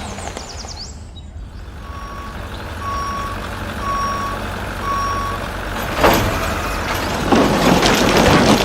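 Toy vehicle's electronic reversing beeper sounding four times, about once a second, followed by a sudden loud noise and then a loud rough rattling noise near the end.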